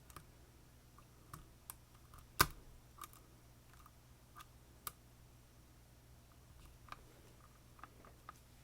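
Small, sharp metallic clicks of lock-picking tools working in an Assa Twin Combi lock cylinder, irregular and scattered, with one louder click about two and a half seconds in.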